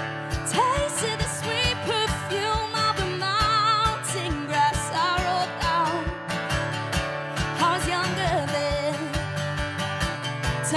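Acoustic guitar strumming chords over a steady cajón beat, with a woman singing the melody: a live acoustic country-pop song.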